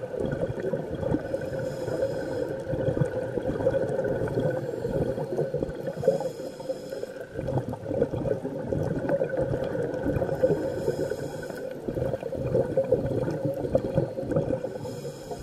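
Scuba diver breathing through a regulator, heard underwater through the camera housing: a high hiss of inhalation about every four to five seconds, and a steady bubbly, gurgling rumble from the exhaled air.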